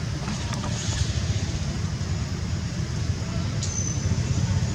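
A steady low rumble, with a few faint clicks and a short high chirp about three and a half seconds in.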